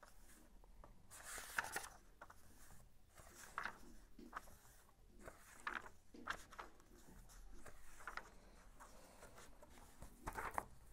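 Pages of a paperback workbook being turned one after another: a string of faint paper rustles and flaps, every second or two.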